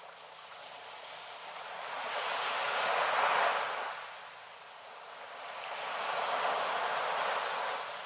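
Small sea waves washing up onto a sandy beach, a hiss that swells and fades: one surge peaks about three seconds in, and a second builds again near the end.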